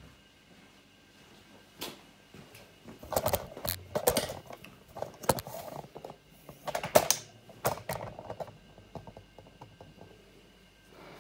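Handling noise: a run of clicks, knocks and rustles as a phone camera is picked up, carried and set down again, loudest in the middle.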